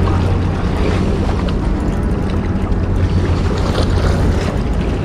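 Sea waves washing against breakwater rocks and wind on the microphone, over a steady low hum.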